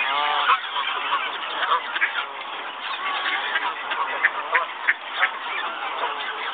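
Waterfowl calling: honk-like calls, the clearest one right at the start, among many short, sharp sounds.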